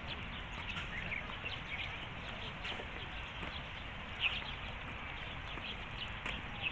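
Small birds chirping in short, scattered high calls, the loudest about four seconds in and near the end, over a steady low background noise of the outdoors.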